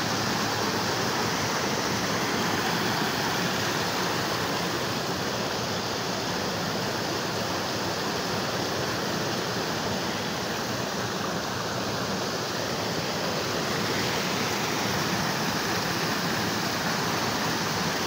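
Water rushing over rocks at a small waterfall and rocky stream, a steady, even rush.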